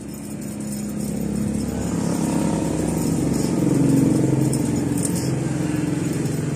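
A motor vehicle's engine passing by. It grows louder to a peak about four seconds in, then fades away.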